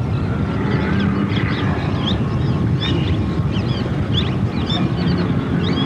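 Many small birds chirping in quick, overlapping calls, over a steady low rumble.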